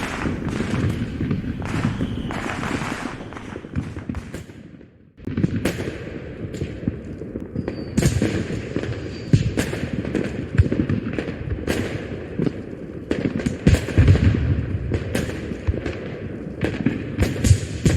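Fireworks sound effect: aerial shells bursting in a dense run of bangs and crackles over a rumbling low roll. It fades out about four seconds in, stops briefly, then starts again abruptly and goes on.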